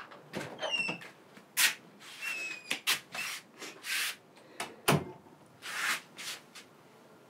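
An apartment's front door being handled and pushed shut: light rustling and clicking, a few short squeaks, then one sharp thud about five seconds in as the door closes.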